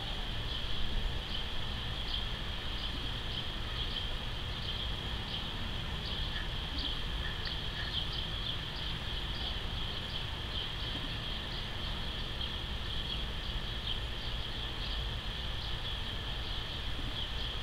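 Outdoor ambience: a steady, high-pitched insect-like trill with many short, high chirps over it, above a steady low rumble.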